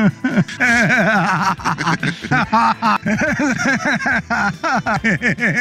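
A man laughing hard in one long unbroken cackle: quick rhythmic 'ha' pulses, about five a second, rising at times into higher-pitched squeals.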